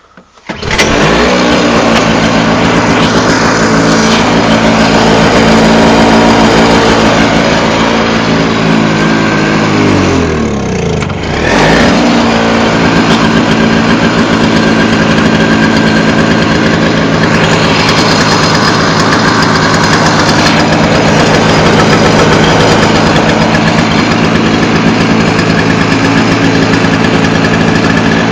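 Toro CCR2000E snowblower's two-stroke engine cold-starting on choke, catching under a second in and running steadily. About ten seconds in it slows and nearly dies, then picks back up and runs steadily again.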